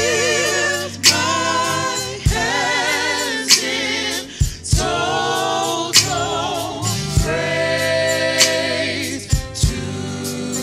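Gospel praise-and-worship team singing in harmony with wide vibrato, backed by keyboard, bass guitar and a drum kit, with drum and cymbal hits every second or two.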